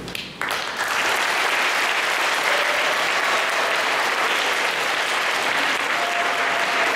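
Audience applauding, with the clapping starting suddenly about half a second in and then holding steady.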